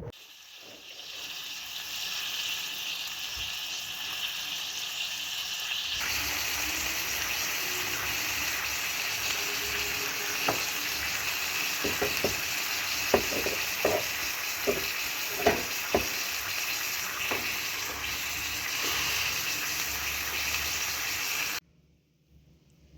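Food frying in a pan: a steady sizzle, with a handful of sharp clicks and pops in the middle stretch. The sizzle stops abruptly near the end.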